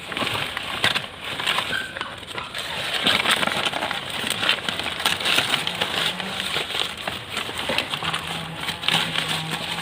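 Dry banana leaves or straw rustling and crackling as they are handled and laid over a nest, in irregular bursts. A faint low steady hum joins in the second half.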